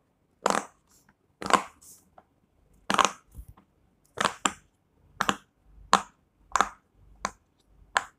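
Silicone pop-it fidget toy bubbles being pressed one after another, giving about ten short, sharp pops at an uneven pace.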